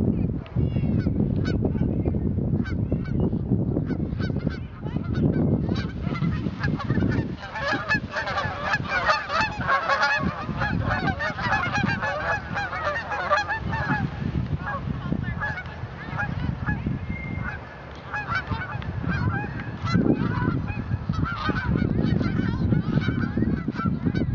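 A flock of Canada geese honking, the calls becoming dense and clamorous from about seven seconds in as the flock is flushed in alarm and takes off, then thinning out after about fourteen seconds. A low rumble comes and goes underneath.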